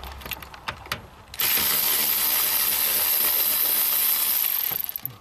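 Cordless power tool turning out a bolt through a socket extension: a few light metal clicks, then about a second and a half in the motor runs steadily for about three seconds and winds down with a quick rattle of ticks.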